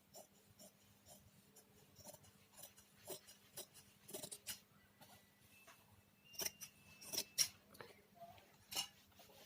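Tailor's scissors cutting through cloth: a run of faint, irregular snips and clicks, the loudest ones in the second half.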